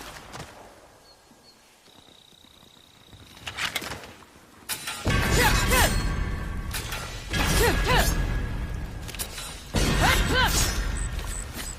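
Katana sword-fight sound effect: steel blades clashing and ringing. A couple of faint hits come first, then three loud clashes spread over the second half, each ringing on with a wavering metallic tone.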